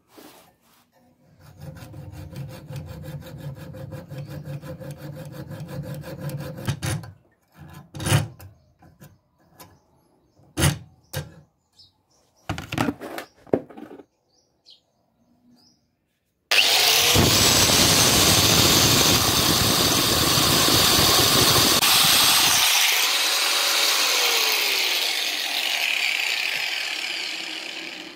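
Rapid sawing at a rusty wire cutter clamped in a vise for about five seconds, then a few sharp separate knocks on the metal. Then a corded power tool runs loudly for about ten seconds and winds down near the end.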